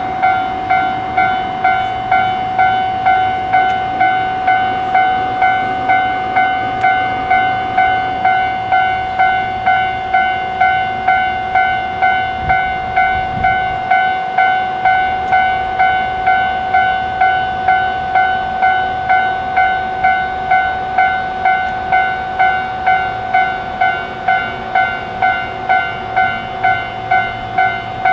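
Japanese level crossing warning bell ringing, an electronic clang repeating evenly at about two strikes a second, the signal that a train is approaching or passing.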